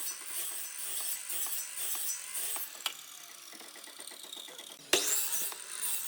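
Woodworking shop work: irregular clicking and rattling, then one sharp loud knock about five seconds in.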